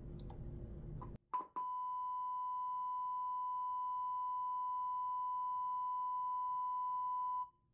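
Steady 1,000 Hz test tone played at full head-unit volume through two 6.5-inch car door woofers wired in parallel with a 2-ohm series resistor (a 4-ohm load), measuring about 116.7 dB on the meter. A short blip comes about a second in, then the tone holds level and cuts off suddenly near the end.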